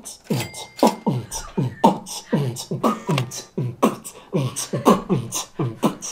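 Man beatboxing through cupped hands, a mouth-made beat built on repeating the syllables 'eumchi pungchi' (음치풍치): a steady pattern of deep, falling kick-drum thumps a little over two a second, with sharp hi-hat-like clicks between them.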